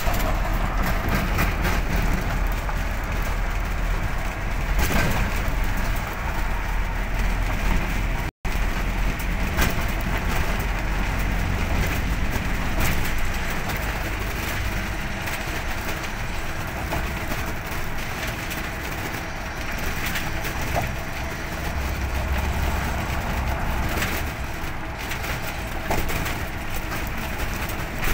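Steady road and wind noise of a vehicle travelling at speed, with a deep rumble underneath. The sound cuts out for a moment about eight seconds in.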